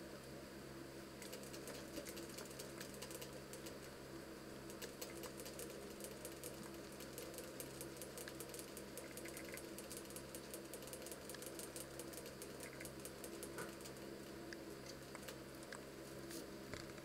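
Young rabbits crunching dry feed pellets: a fast run of faint dry clicks that thins out about three-quarters of the way through, over a steady low hum.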